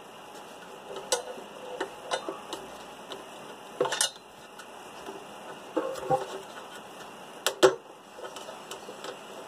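Irregular plastic clicks and knocks from a stock truck fog light housing and its plastic bracket being handled while the mounting clips are pressed and pried free. The loudest are two sharp clicks close together near the end.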